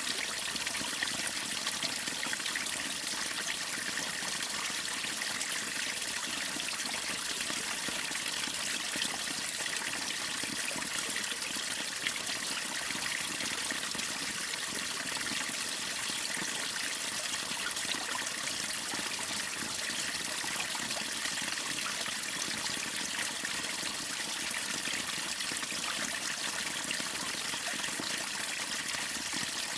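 Water pouring over a waterfall: a steady, even rush of falling and splashing water that stays bright and unchanging throughout.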